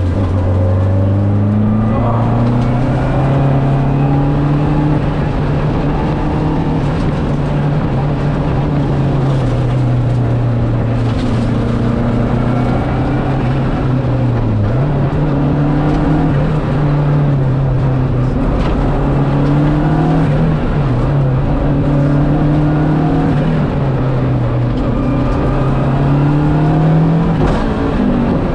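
Lancia Delta Integrale's turbocharged four-cylinder engine driven hard on a rally stage. Its note climbs and drops again and again as the car runs up through the gears and lifts off for corners.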